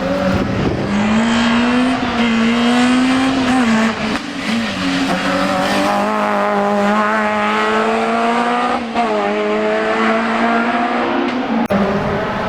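Race car engine revving hard, its pitch climbing and dropping several times as it accelerates and shifts gear, with brief breaks in the sound as it changes gear.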